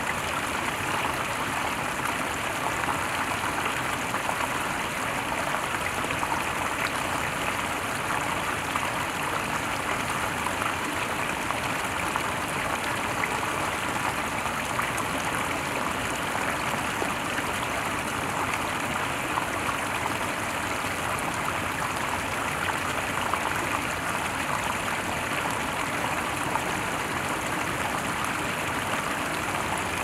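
Small stream running steadily, water spilling over a low rock-and-log cascade into a pool.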